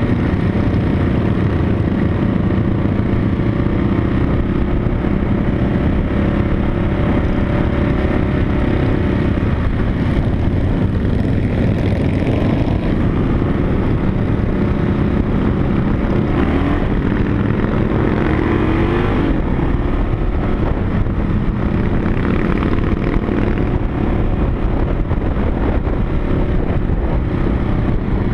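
Motorcycle engine running steadily at cruising speed, heard from a camera mounted on the moving bike, with the other motorcycles of a group riding ahead.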